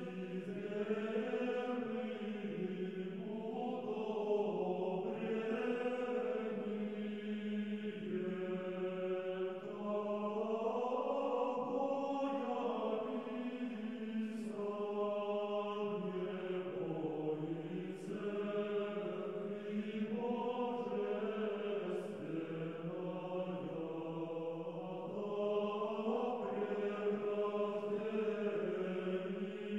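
Background music: a slow choral chant, voices singing long held notes that shift pitch only now and then.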